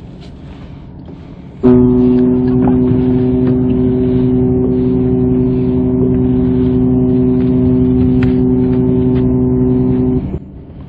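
Ship's horn sounding one long, steady blast of about eight seconds, starting about two seconds in and cutting off near the end.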